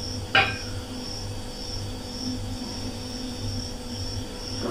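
A steady machine hum that pulses about twice a second, with one sharp click about half a second in.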